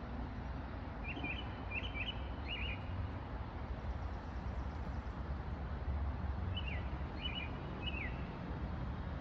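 A small bird chirping in quick groups of short, downward-sliding notes, one bout about a second in and another about six and a half seconds in, over a steady low rumble.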